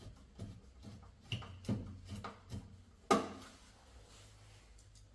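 Screws being refitted by hand into a washing machine's front panel: a run of light clicks and knocks, with one sharp knock that rings briefly about three seconds in.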